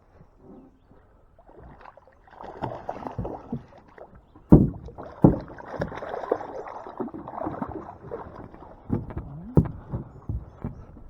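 Water sloshing and splashing around a small fishing boat, with two loud knocks about four and a half and five seconds in, and smaller clicks and knocks throughout.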